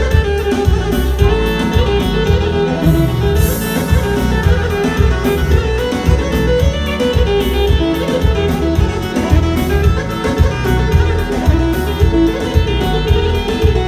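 A live wedding band plays an instrumental dance tune: a violin-like melody over a steady bass and drum beat, with no singing.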